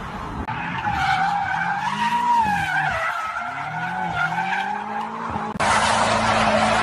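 Car tyres squealing in a burnout, a wavering high tone, while the engine revs up and down several times. About five and a half seconds in, an abrupt cut to a louder, rougher rush of tyre noise over a steady engine note.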